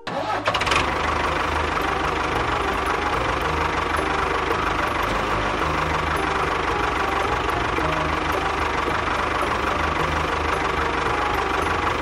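Tractor engine starting and then running steadily with a low, even chug.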